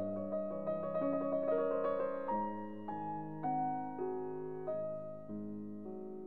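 Soft background piano music: a slow melody over held low notes, with a quicker run of notes in the first two seconds.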